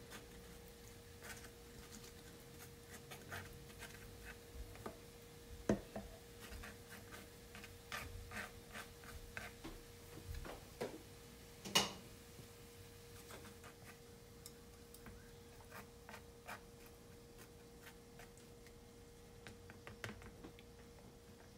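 Wooden chopsticks tapping and scraping on a flatbread base while spreading a crumbly topping: scattered small clicks and taps, two sharper knocks about 6 and 12 seconds in, over a faint steady hum.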